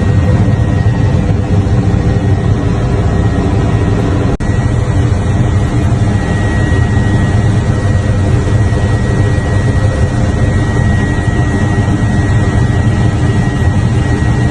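Aircraft engine noise, loud and steady, with a thin high whine held throughout; a brief break about four seconds in.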